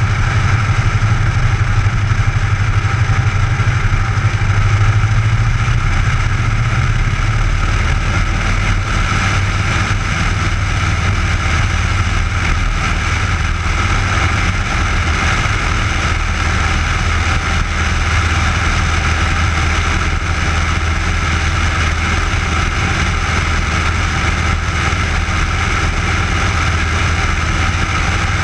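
Piper J-3 Cub's engine and propeller running at full power on the takeoff roll and climb-out: a loud, steady drone.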